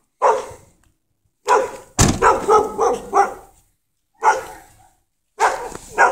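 A dog barking in bursts, several quick barks at a time with short pauses between, and a low thump about two seconds in.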